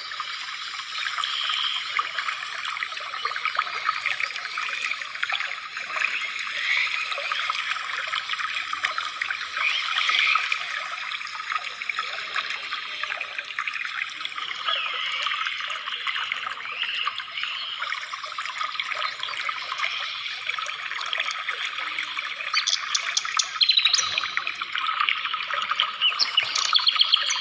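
Steady trickling water with birds chirping over it, and a few sharp clicks near the end.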